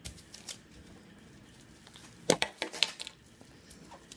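Glass bottles clinking and knocking as they are handled: a couple of light clicks near the start, then a cluster of louder, sharper clinks a little past two seconds in.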